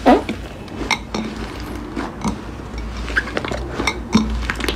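Soft pink slime being squeezed and kneaded by hand, giving off irregular sticky clicks and small pops, with one louder squelch just at the start.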